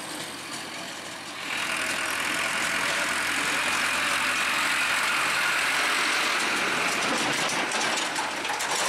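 CASE tractor's diesel engine running as it drives past close by, pulling a loaded trailer. It grows louder about a second and a half in, then stays steady.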